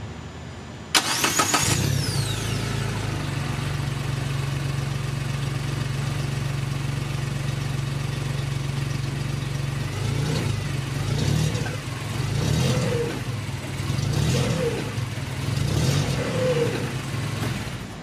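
Side-by-side UTV engine started about a second in, settling into a steady idle, then revved in several short throttle blips through the second half.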